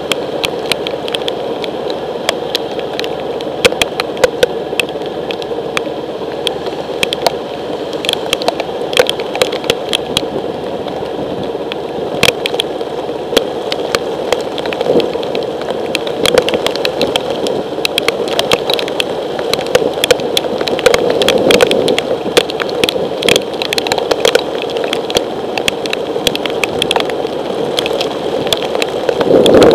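Heavy rain hitting a motorcycle-mounted camera, with constant irregular sharp clicks of drops striking the housing, over the steady idle of a Honda ST1100's V4 engine. It gets a little louder near the end.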